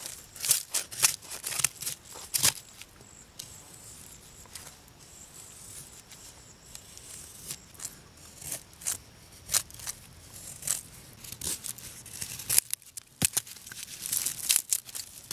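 Mora knife blade shaving thin curls off a dry stick to carve a feather stick for kindling: a run of short, dry scraping strokes, thickest near the start and near the end.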